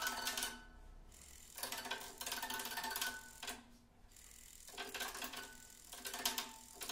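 Acoustic guitar lying flat with its strings mechanically agitated: dense rattling and clicking with ringing string tones. It comes in spells a second or two long, broken by quieter gaps of about a second.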